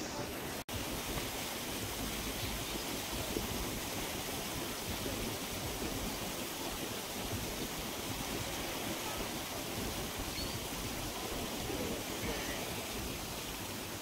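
Steady wash of small sea waves on the shore stones, mixed with wind noise. The sound drops out completely for an instant under a second in.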